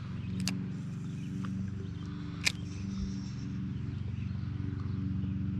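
Bow-mounted electric trolling motor running, a steady low hum as the boat cruises slowly. Two sharp clicks sound about half a second in and again about two and a half seconds in.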